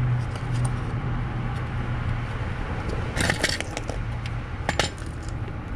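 Light metallic clinks and a short rattle from metal clutch parts being handled on a manual gearbox, about three seconds in and again near five seconds, over a steady low hum.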